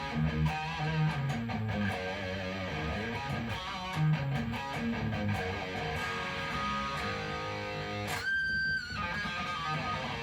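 Electric guitar played through a Marshall DSL40CR tube combo amp: a run of notes and chords. About eight seconds in, a brief different sound with a high steady tone cuts in for under a second.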